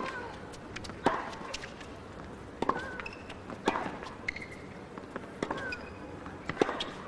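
Tennis rally on a hard court: a string of sharp racket-on-ball strikes about every second or so, with short shoe squeaks on the court between shots.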